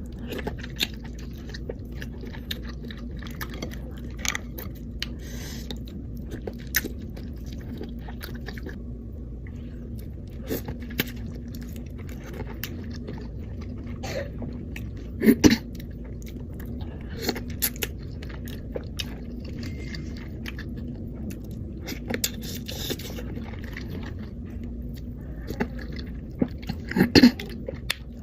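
Close-miked eating sounds of a person eating seafood boil: chewing and biting with scattered wet clicks and smacks, a louder cluster about halfway and another near the end, over a steady low hum.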